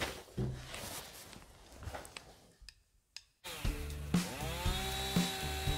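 A few knocks and rustles as a man goes out through a door. About three and a half seconds in, music starts with a steady beat about twice a second under a held, buzzy tone.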